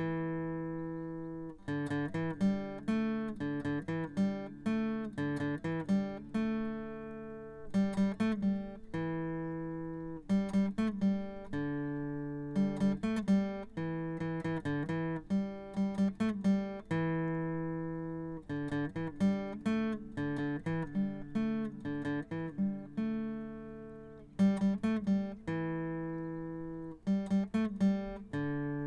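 Background music on solo acoustic guitar: picked notes and strummed chords that ring and fade.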